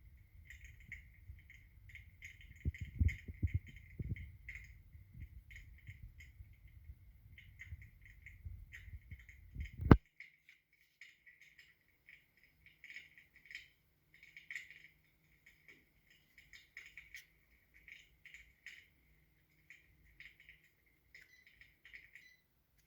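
Electric fireplace's crackling-fire sound effect: irregular small crackles through a small speaker, stopping near the end. A few low thumps around three seconds in and one sharp loud click about ten seconds in.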